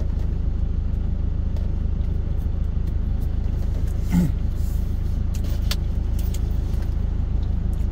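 Steady low rumble of a truck's engine idling, heard inside the cab. About four seconds in there is a brief rubbing of hands together.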